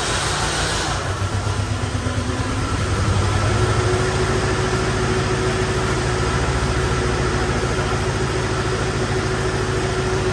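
The engine of a 1994 Chevrolet S-10 that sat uncovered for five years, running and settling into a steady idle. A high hiss cuts off about a second in, and the engine swells slightly around three to four seconds before evening out.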